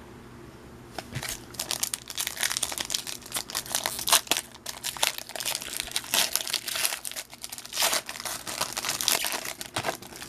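Trading card pack wrapper crinkling as it is handled, an irregular run of crackles that starts about a second in.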